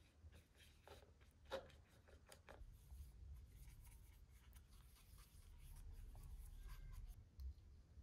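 Faint scraping and tapping of a paintbrush stirring acrylic paint in a plastic palette well, with a sharper tap about a second and a half in. Near the end a palette knife scrapes thick structure paste onto the palette.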